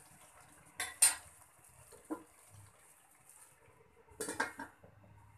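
Metal cookware clanking: two sharp clanks about a second in, a lighter clink around two seconds, then a short clatter near the end as a stainless steel lid is set down on a wok.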